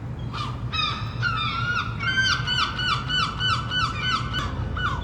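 Gull calling in a rapid series of harsh notes, each falling in pitch, about three to four a second, stopping shortly before the end.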